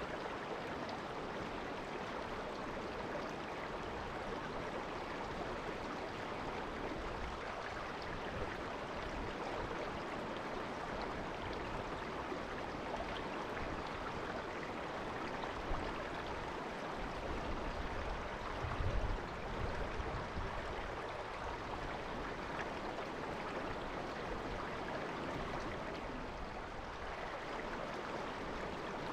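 A shallow river murmuring over stones: a steady, even rush of water. There is a brief low rumble a little past halfway.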